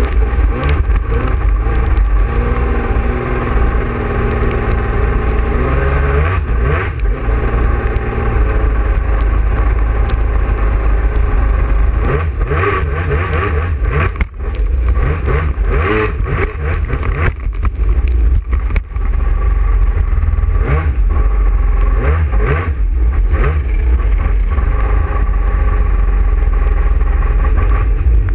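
A racing sit-down personal watercraft's engine runs hard, heard from on board over the rush and spray of water against the hull. The engine note dips briefly twice around the middle.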